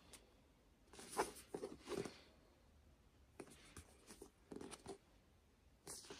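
A paperback book handled and turned over in the hands: faint brushing and rustling of the cover, in two short clusters about a second in and again past the middle.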